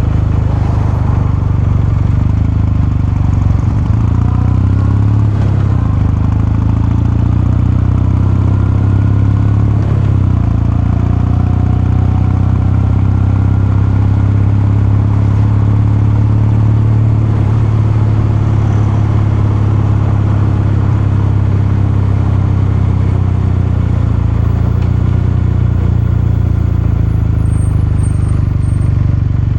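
Kawasaki Meguro K3's air-cooled parallel-twin engine and exhaust running steadily, the engine note holding level with no big revs.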